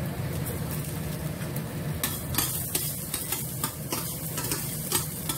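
Minced garlic and ginger sizzling in oil in a stainless steel pan, with a spatula stirring and scraping against the pan in quick clicks from about two seconds in. A low steady hum runs underneath.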